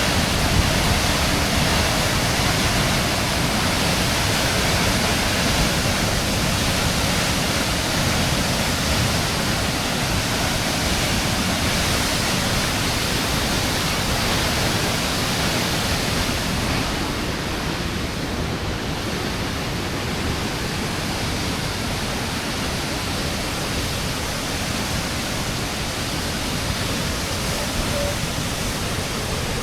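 Waterfall rushing: a steady, loud roar of falling water, with the hiss easing slightly about halfway through.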